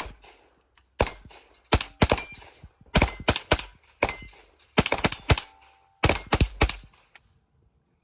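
.22 semi-automatic firearm firing about sixteen shots in quick, irregular succession, stopping about seven seconds in.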